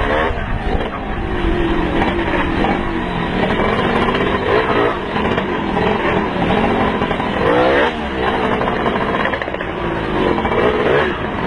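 Dirt bike engine running and revving up and down, heard from on board the bike, over a steady rush of wind noise.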